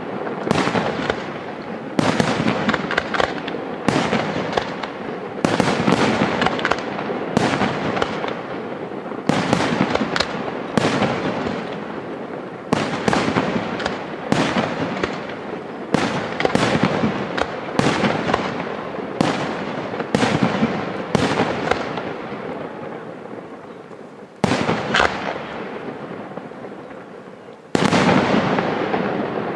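Aerial firework shells bursting in quick succession, about one or two sharp bangs a second, each trailing off in a long echoing tail. The barrage thins out about two-thirds of the way through, then two more loud bursts come near the end.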